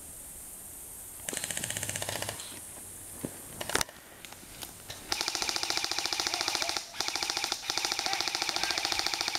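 M4-style airsoft rifle firing on full auto: a burst of about a second, a few single clicks, then long rapid-fire strings from about halfway in, broken twice by brief pauses.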